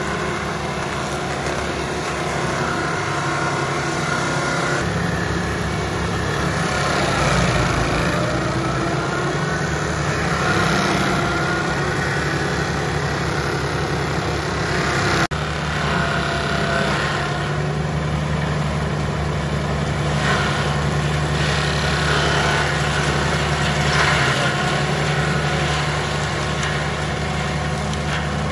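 Tractor engine running under load, driving a PTO-mounted stump grinder whose toothed rotor chews into a tree stump; the grinding noise rises and falls over the steady engine. The sound changes abruptly about halfway through.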